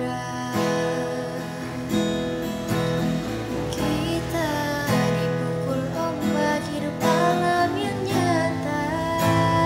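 Instrumental passage of a ballad: strummed acoustic guitar with a sliding melody line over it.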